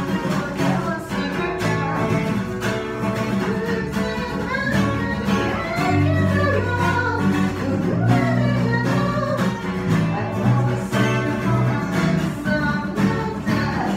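Acoustic guitar and electric bass playing a song together, with a female vocalist singing over them. The bass holds long low notes while the guitar strums and picks.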